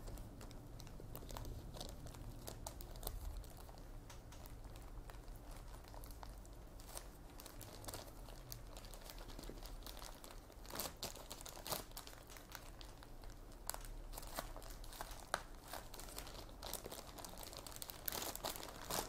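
Faint crinkling of a clear plastic bag under and around a bamboo sushi mat, with scattered light clicks, as the mat is rolled and pressed around a sushi roll.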